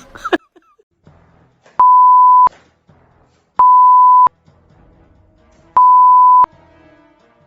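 Three long electronic beeps at one steady pitch, each lasting about two-thirds of a second and spaced about two seconds apart, with faint background sound between them.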